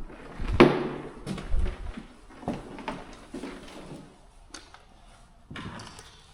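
A series of knocks and bangs, like a door or hard objects being moved, with the loudest bang about half a second in and lighter knocks after it.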